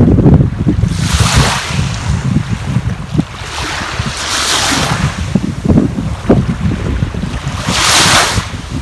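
Sea waves washing in, three swells of surf about three to four seconds apart, over heavy wind buffeting the microphone throughout.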